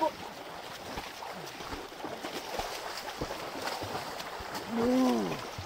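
Swimmers splashing in a small plastic-lined pool, with water pouring in from a pipe as a steady rushing hiss and scattered sharp splashes. Near the end a voice gives one long drawn-out shout that rises and falls.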